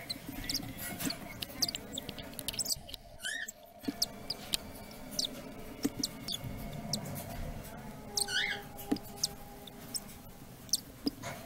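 Very young cockatiel chicks peeping: many short, high squeaks scattered throughout, with a longer rising cheep about three seconds in and again about eight seconds in.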